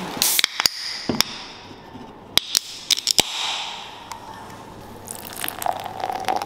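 Clear packing tape pressed down onto a cardboard box, then an aluminium soda can cracked open with sharp clicks of the pull tab and a hiss, then the drink poured into a glass.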